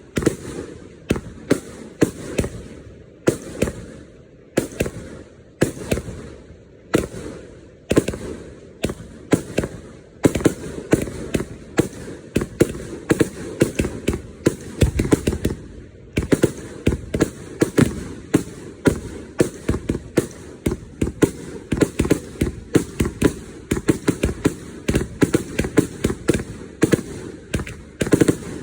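Fireworks going off in a long, irregular string of sharp bangs, one to three a second, growing denser and louder from about ten seconds in.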